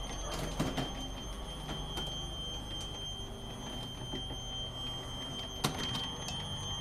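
Electric drive of a radio-controlled toolbox cart running as it rolls over concrete: a steady machine whir with a thin high whine. A few sharp knocks come through it, the loudest about five and a half seconds in.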